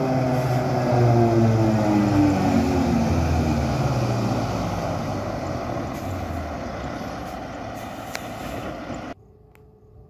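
Rosenbauer Panther airport fire truck's engine driving past at speed, its engine note falling in pitch and fading as it draws away. The sound cuts off suddenly about nine seconds in.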